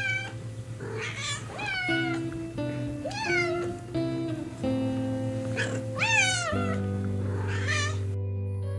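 Domestic cat meowing repeatedly, about six meows, each rising then falling in pitch, over soft background music with long held notes. The meows stop shortly before the end, leaving only the music.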